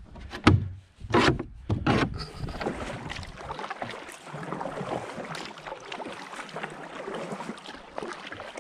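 A few loud knocks in the first two seconds. Then a kayak paddle dipping and splashing in the river, with a steady watery wash as the kayak is paddled up against the current.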